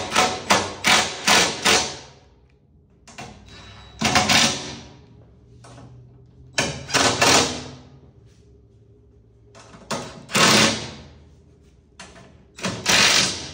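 Cordless impact driver running screws into rivet nuts in a steel roll-cage frame. It starts with a quick run of short trigger pulses, then comes four separate bursts of hammering, each about a second long.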